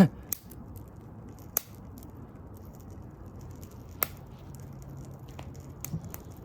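Burning plastic coffee maker crackling, with a handful of sharp, irregular pops over a low steady hiss. The flames are fed by a heating element running with its thermal cutout and fuse disabled.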